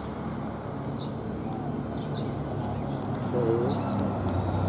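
Small birds chirping every second or so over a steady low hum, with one short low call, like a dove's coo, about three and a half seconds in.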